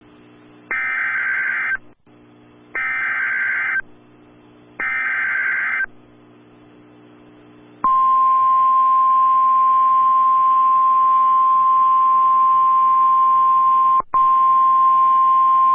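NOAA Weather Radio emergency alert tones: three short, roughly one-second bursts of the SAME digital header, a warbling data signal, followed about eight seconds in by the steady 1050 Hz warning alarm tone, which drops out for an instant near the end. A faint radio hiss sits between the bursts.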